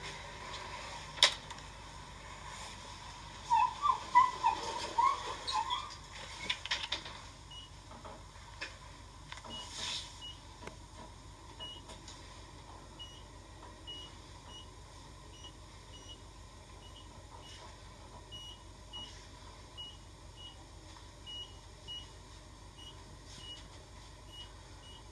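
Elevator cab in motion with its doors shut: a steady high hum over a low machine drone, a few seconds of squeaky chirps and clicks early on, then a faint short high beep repeating about twice a second.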